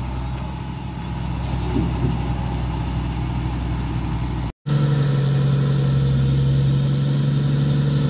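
Heavy diesel engines idling with a steady low drone. About halfway through, the sound drops out for a moment at an edit and returns louder and steadier.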